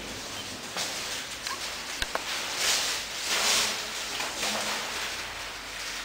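Large flip-chart paper sheets rustling as they are lifted and turned over the top of the chart, in several swells, with two sharp clicks about two seconds in.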